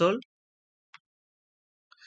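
The end of a spoken word, then near silence broken by a single faint click about a second in.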